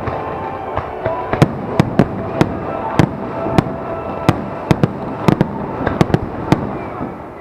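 Aerial fireworks display: shells burst in a rapid, irregular run of sharp bangs, about two a second, over continuous crackling, dying down near the end.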